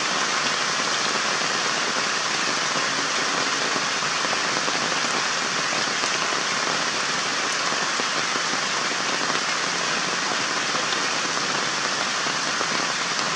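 Steady, even hiss with no breaks, strongest in the upper-middle and high pitches, like rain.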